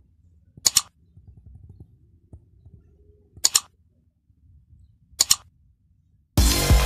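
Mouse-click sound effect, each a quick double click, heard three times with near silence between. Loud electronic music starts near the end.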